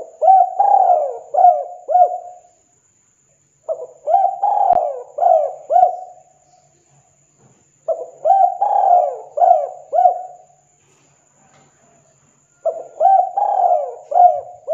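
Spotted dove (tekukur) cooing: four phrases of several quick notes each, every phrase lasting about two and a half seconds, repeated every four seconds or so. The last phrase starts near the end.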